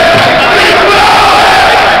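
Large football stadium crowd chanting in unison: a loud, continuous mass of voices held on one wavering note.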